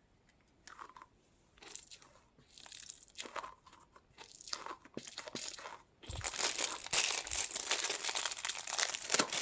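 Sticky stress ball squeezed in the hands: scattered soft crackles at first, then dense, continuous sticky crackling from about six seconds in.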